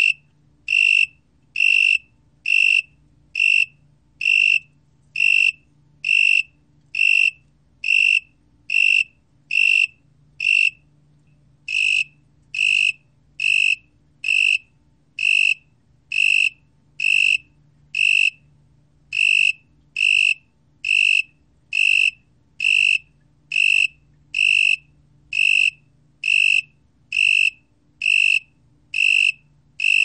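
Broad-winged tree cricket (Oecanthus euryelytra) singing at 22 °C: a steady run of loud, clear, high-pitched chirps, about one and a half a second, each lasting about a third of a second. There is a slightly longer pause about eleven seconds in.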